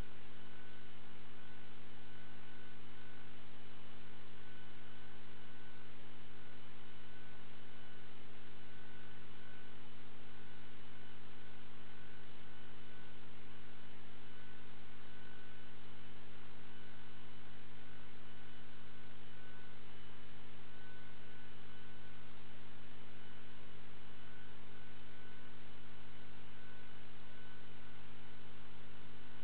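Steady electrical mains hum with many overtones and a faint higher tone that flickers on and off, unchanging throughout.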